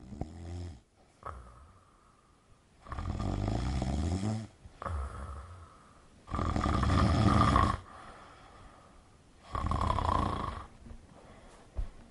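A person snoring loudly: a rhythmic series of rasping snores, each lasting a second or so, about every three seconds.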